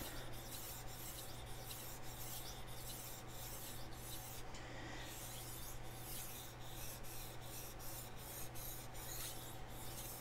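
Chef knife blade scraping back and forth across a whetstone in quick, even strokes, about three a second, with a brief pause about four and a half seconds in. The second side of the edge is being worked to raise a burr.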